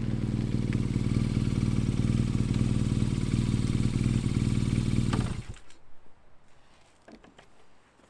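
A custom BMW R nineT's air/oil-cooled boxer twin idles steadily through a full Akrapovic titanium exhaust, then is switched off about five seconds in. A few faint clicks follow.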